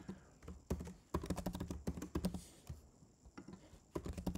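Typing on a computer keyboard: quick runs of keystrokes, then a pause of about a second before a few more keystrokes near the end.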